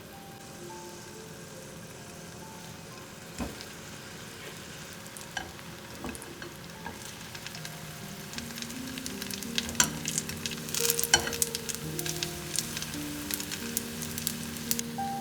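Food frying in hot oil, sizzling and crackling, with the crackle building up about halfway in. A couple of single knocks come before it.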